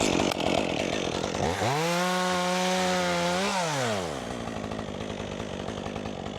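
Chainsaw working a branch: the engine rises sharply to full revs about a second and a half in, holds there for about two seconds, then drops back to a steady idle.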